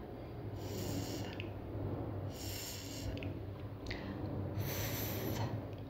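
Unvoiced dental fricative 'th' (as in 'thumb') hissed on its own, breath squeezed between the tongue tip and the teeth. It is held three times, each for about a second, with short gaps between.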